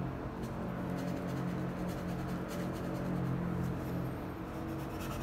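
Soft background music of sustained low notes.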